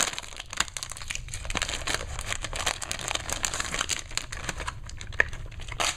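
HeroClix figure pack's printed plastic-and-card packaging being torn open and crumpled by hand: a dense, continuous run of crinkles and crackles.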